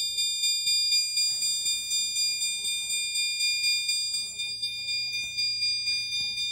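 System Sensor SpectrAlert Advance chime strobe sounding in alarm: a high-pitched electronic chime repeating evenly about three times a second over a steady high ringing tone.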